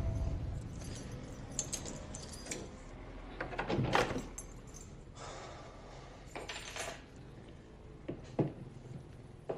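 Soft household handling sounds: keys jangling, small clicks and rustles with soft footsteps, a louder rattle about four seconds in and a short thump near the end.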